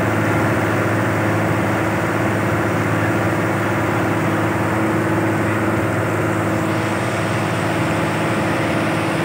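Boat engine running steadily at an even, unchanging pitch while the boat is under way.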